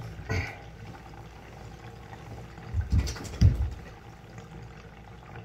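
Water sloshing and dripping in a bathtub as a wet puppy is lifted out, with two loud dull thumps about three seconds in.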